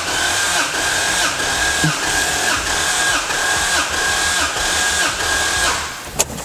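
Starter motor cranking the Lexus IS300's six-cylinder engine with the spark plugs out, for a compression test. The cranking whir pulses about every two-thirds of a second with each compression stroke, and cylinder 1 builds to about 12.9 bar, within the 13 bar specification. The cranking stops shortly before the end, followed by a click.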